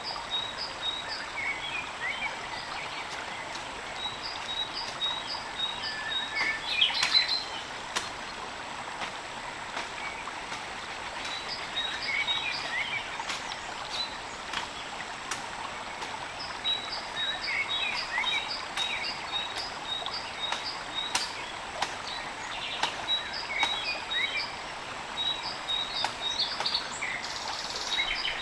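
Steady hiss of rain in a forest with birds calling and rows of short, high, evenly repeated chirps, plus occasional sharp ticks.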